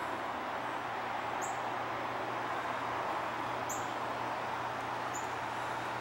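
Steady rushing of a swollen river in flood, with short, very high bird chirps about every two seconds.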